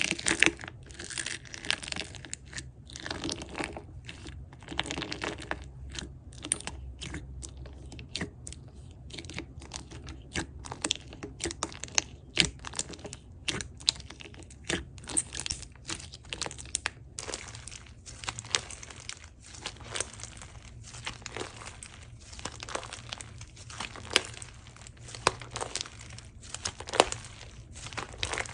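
Slime being pressed, squished and stretched by hand: a constant run of small sticky clicks, crackles and pops, some with a crunch from polymer clay slices pressed into the slime.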